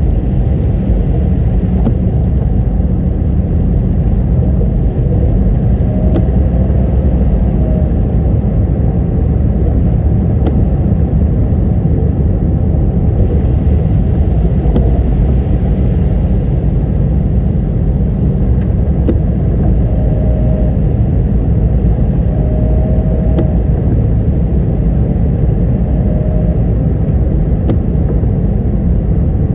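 Car travelling along a road: a steady low rumble of road and engine noise, with a few short faint squeaks.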